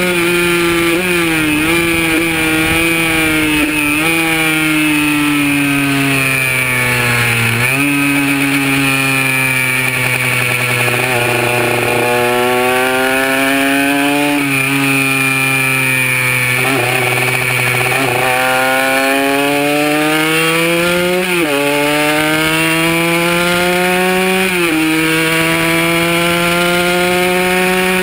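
Kawasaki KR150's single-cylinder two-stroke engine at speed, heard from on the bike. Its pitch climbs under acceleration and drops sharply at each upshift, then sinks as the bike slows, with short jumps in pitch at the downshifts.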